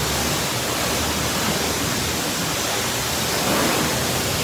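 High-pressure spray wand of a self-serve car wash spraying water onto a car, a steady rushing spray.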